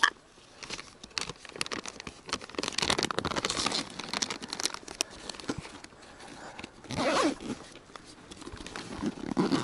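Zipper on a fabric shoulder bag being pulled open in a run of short rasping strokes, then rustling and crinkling as hands rummage through packets inside the bag.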